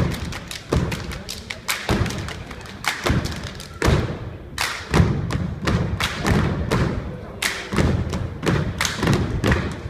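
Performers stomping on a floor in a fast, uneven rhythm, with sharp claps or slaps among the heavy thuds, as in a step routine.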